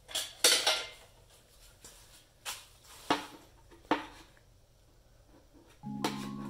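Metal scraper drawn across a snowboard's polyethylene base in a few short scraping strokes, shaving off hardened P-Tex repair filler; the loudest strokes come about half a second in. Background music starts near the end.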